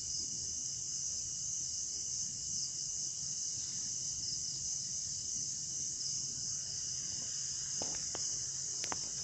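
Steady night chorus of crickets and other insects, a continuous high-pitched trill with a fainter steady tone below it. A few faint short clicks come near the end.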